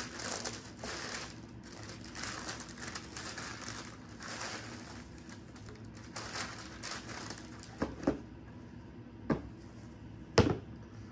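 Tissue paper rustling and crinkling as it is folded back inside a cardboard shoebox, followed near the end by three sharp knocks as sneakers are lifted out and the box is handled.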